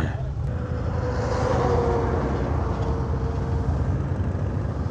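Kawasaki Ninja 650R's parallel-twin engine pulling away from a stop, heard from the rider's seat as a steady low rumble that swells a little about a second in.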